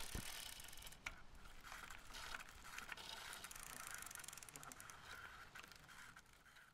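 Faint mechanical ratcheting: many rapid small clicks over a hiss.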